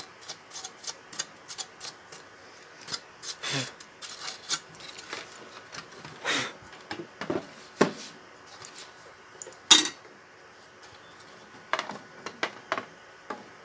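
Sheet-metal cover of an audio amplifier being handled and fitted back onto the chassis by hand: irregular clicks and clanks of metal on metal, with a few short scrapes.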